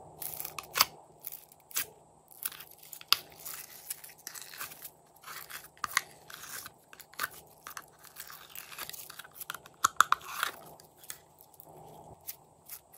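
Glossy yellow glitter slime crackling and clicking as it is peeled out of a thin plastic container and squeezed by hand, a run of irregular sticky pops and crinkles.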